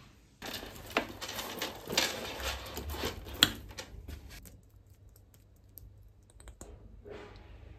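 Crinkling and clicking of packaging being handled for about four seconds, then quieter, with a few small clicks as a lip gloss tube is opened.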